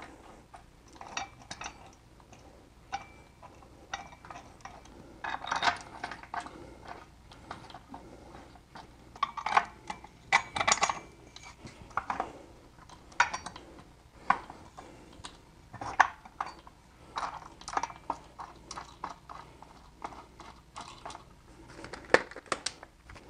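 Steel bolts and washers clinking, tapping and scraping against a steel engine-stand mounting bracket as they are picked up and threaded in by hand. The sound is scattered irregular metal clinks, some with a short ring.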